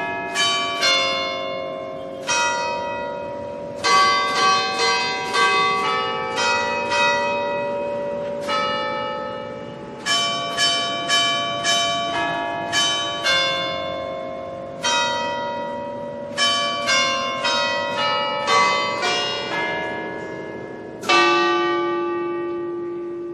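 Church bells pealing: several bells struck in quick groups, each note ringing on and fading before the next group. A deeper bell rings out strongly near the end.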